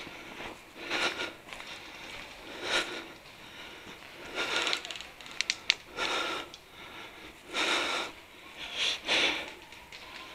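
Heavy breathing of a person moving on foot: a loud breath about every one and a half to two seconds. About halfway through comes a quick run of sharp clicks.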